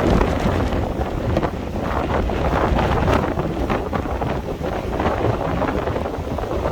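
Strong sea wind buffeting the microphone in uneven gusts, a loud low rumbling rush.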